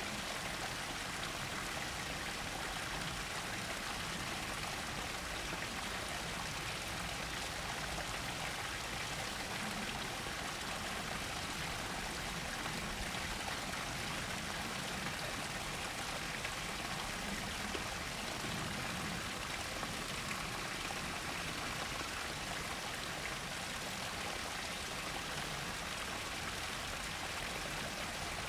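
Mountain stream water flowing in an even, unbroken rush.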